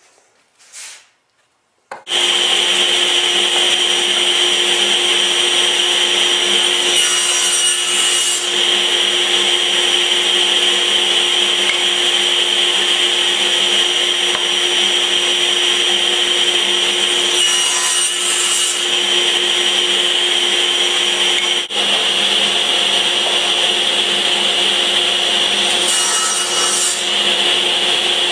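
Electric woodworking power tool running steadily while cutting wood, with a constant whine over a hiss. It starts abruptly about two seconds in, and the hiss swells briefly three times.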